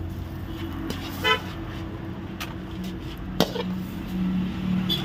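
Road traffic beside a street-food stall, with a short vehicle horn toot about a second in. A single sharp clank comes near the middle, and a low engine hum rises in the second half over a steady low drone.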